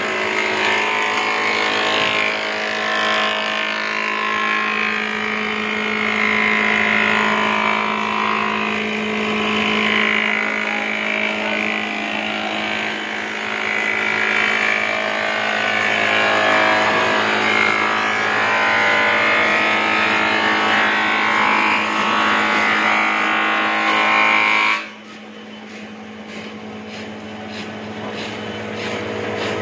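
Bindi combination wood planer running with a steady motor hum while its cutter shaves a wooden plank, a loud rough cutting noise. About 25 seconds in the cutting stops suddenly and the machine runs on, much quieter, with only its hum.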